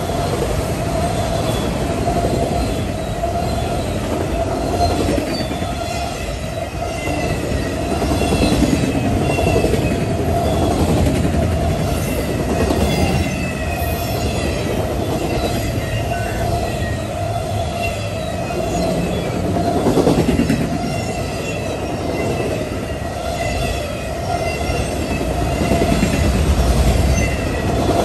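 Freight train of autorack cars rolling past: a steady rumble of steel wheels on the rails, with short high wheel squeals again and again.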